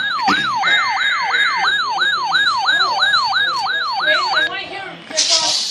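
Electronic alert siren yelping in fast falling sweeps, about three a second, stopping about four and a half seconds in. About a second in, a burst of steady two-tone data squeal sounds over it for about a second, like an EAS header burst. A short hiss follows near the end.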